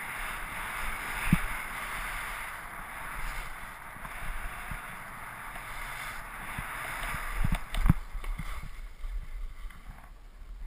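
Skis sliding and scraping over packed snow in a steady hiss, with wind on the microphone and a few low thumps, the loudest about a second in and near eight seconds. The hiss fades out about eight and a half seconds in.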